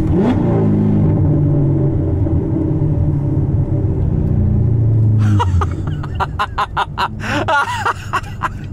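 Cammed, muffler-less 6.2-litre V8 of a Corvette C7 Stingray with headers, droning loud and low under throttle, with a quick rise in pitch just after the start. About five seconds in the throttle closes and the deep note falls away into a rapid, uneven string of sharp pops and crackles from the open exhaust.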